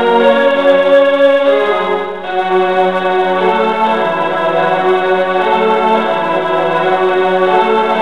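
Portable electronic keyboard played with both hands on a sustained, organ-like voice: held notes and chords that change every second or two, with a brief dip about two seconds in.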